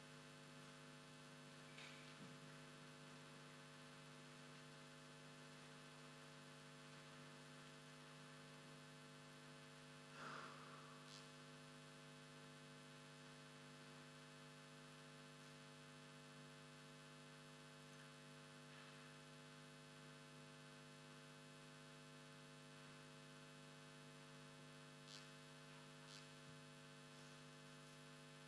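Near silence with a steady electrical hum, broken a few times by faint, brief sounds, the most noticeable about ten seconds in.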